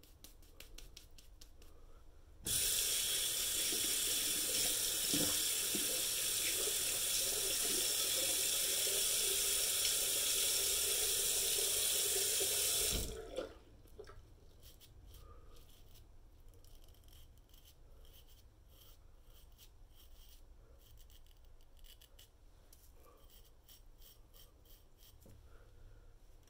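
Bathroom sink tap running for about ten seconds, turned on a couple of seconds in and shut off abruptly. After it, faint quick scratching of a Damascus steel kitchen knife blade scraping through lathered beard stubble.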